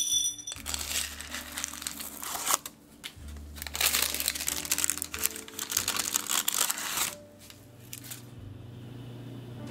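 Parchment paper crinkling and rustling as it is handled to lift ceramic pie weights out of a blind-baked tart shell, in two stretches of about two and three seconds; background music plays underneath.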